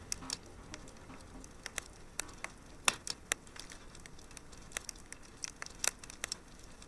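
Crackling fire with irregular, sparse pops and snaps over a faint low hum.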